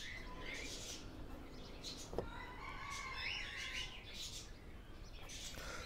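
Birds chirping in the background, with a single sharp click about two seconds in.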